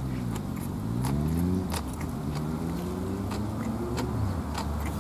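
A passing road vehicle's engine, its pitch falling, then rising and levelling off, with scattered sharp clicks over it.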